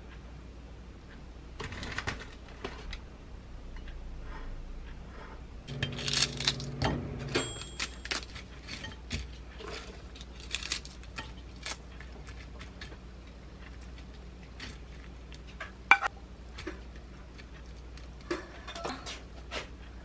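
Kitchen handling sounds: ceramic plates and food being moved on a countertop, with scattered light clicks and taps. About six seconds in there is a denser clatter with a short steady hum, and a single sharp click near the end.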